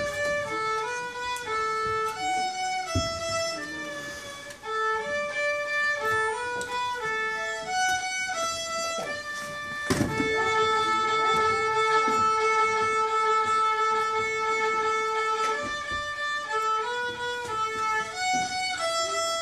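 A solo fiddle plays a melody one note at a time, stepping up and down. About halfway through it holds one long note for several seconds, then goes back to shorter notes.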